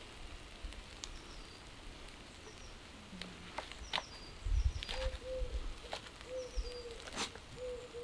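Kitchen knife chopping wild garlic leaves on a wooden chopping board: a few scattered sharp knocks. Birds call in the background, with small high chirps and, from about halfway, a low call of short notes repeated in twos and threes.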